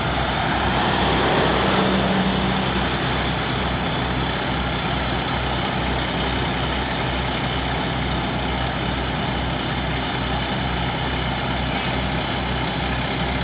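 Heavy diesel engine of an asphalt milling machine idling steadily with an even low throb. There is a brief louder swell with a hum about two seconds in.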